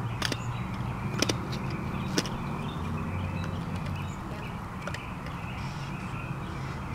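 Outdoor background: a steady low hum with faint bird calls, and three sharp clicks about a second apart in the first few seconds, then a fainter one.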